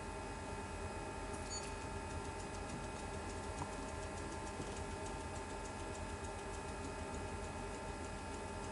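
Endodontic handpiece motor driving a NiTi file in an oscillating T-mode (90-degree back-and-forth motion at 100 rpm): a steady hum with faint, regular ticking several times a second, starting about a second and a half in.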